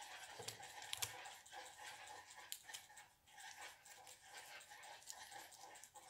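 Near silence: faint room noise with a few soft clicks, the loudest about a second in.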